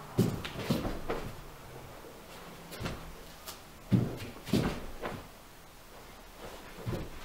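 A string of dull thuds from bare feet landing on a mat floor and a body dropping back down onto it, as a person jumps up from a sit-up and lies down again. The loudest thuds come about four to five seconds in.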